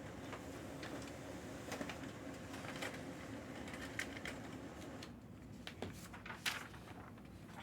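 Hands handling a trading-card box and its plastic wrapping: scattered light crinkles, taps and clicks, busiest about five to seven seconds in, over a steady room hum.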